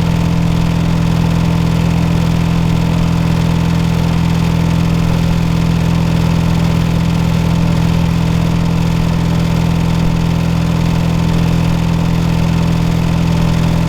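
Air-conditioner outdoor unit running with a loud, steady low hum, like a generator. The uploader tags it as a faulty air conditioner.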